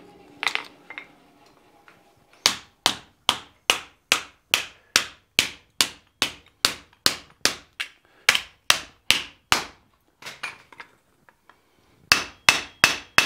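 Hand hammer striking hot 1/8-inch sheet steel on an anvil, hammering a folded piece to open the fold back up. A steady run of blows starts about two seconds in, about two and a half a second. A short pause with a few light taps follows, then the blows start again near the end.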